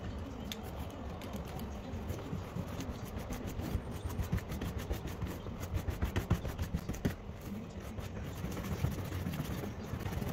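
Stiff scrubbing brush working leaded-light cement into the lead cames of a stained glass panel: rapid, rough scratching strokes, heaviest in the middle.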